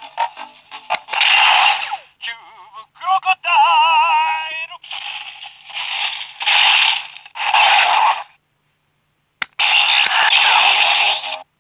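Electronic sound effects from the crocodile-shaped Zyuoh The Light toy's speaker: a string of short noisy bursts, a warbling electronic tone about three seconds in, then about a second of silence before a last long burst near the end.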